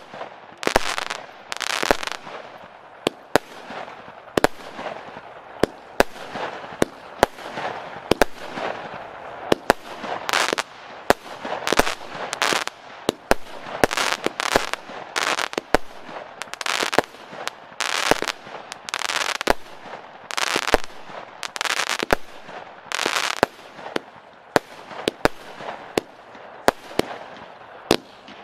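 A 36-shot, 20 mm consumer firework cake (battery) firing shot after shot, about one a second at an uneven pace. Each shot is a sharp bang followed by a short noisy burst as the effect breaks in the air.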